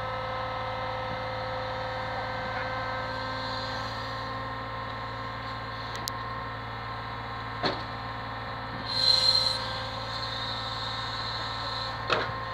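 Brick lorry's engine and lorry-mounted hydraulic crane running with a steady humming drone as the boom swings. A knock comes past the middle, then a short loud hiss, and a few knocks near the end.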